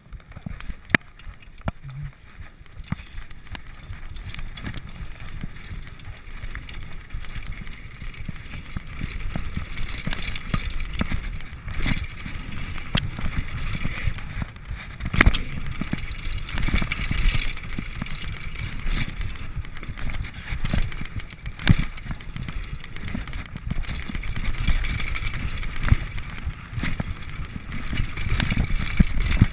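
Mountain bike riding fast down a dirt trail: a steady rumble of tyres and air with rattling, and several sharp knocks as the bike hits bumps. It gets louder as the bike picks up speed after the first few seconds.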